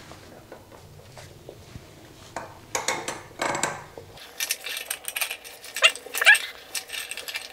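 Metal clicks and short squeaks from turning a compression ring puller's threaded screw against its brass sleeve, steel rubbing on metal under load as it draws a stuck compression ferrule off a copper pipe. Most of the clicks and squeaks come in the second half.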